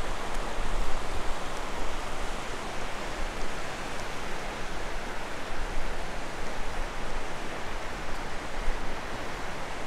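Shallow river flowing over rocks and riffles: a steady rushing hiss.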